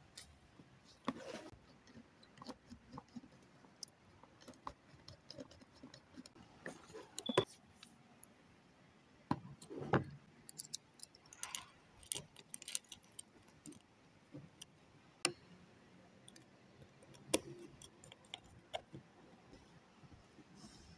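Scattered small clicks and taps, with several louder knocks, of hand work on a double-pole main breaker: red and black supply cables being fitted into its terminals.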